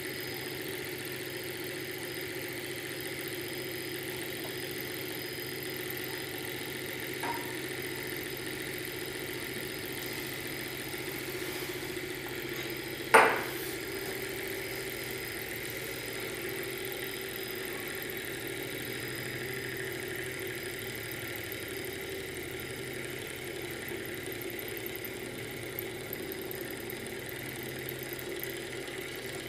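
Small tabletop Stirling hot-air engine running steadily, a light mechanical hum from its piston and flywheel. A single sharp click about 13 seconds in, with a fainter one earlier.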